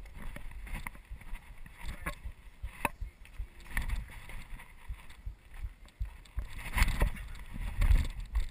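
Wind rumbling on a body-worn action camera's microphone as the wearer climbs and runs, with scattered knocks and scuffs from hands and feet on ledges and ground. The rumble grows louder near the end.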